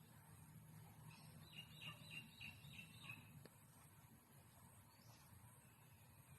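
A bird chirping faintly: a quick run of about six short, high notes, roughly three a second, over a steady low background hum.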